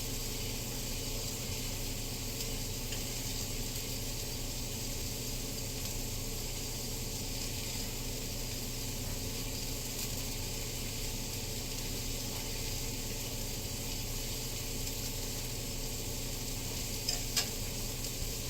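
Food frying in a pan: a steady sizzle. Two short clicks near the end.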